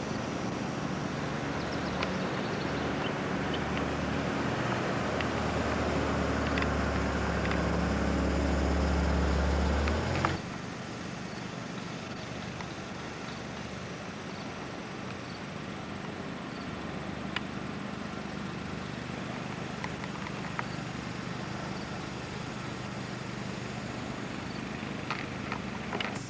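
An engine running, with a steady low hum that grows louder for about ten seconds and then cuts off abruptly. A quieter steady background with a few faint clicks follows.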